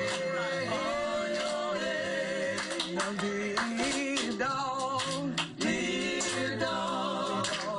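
Several people singing a song together, with sharp hand claps scattered through it.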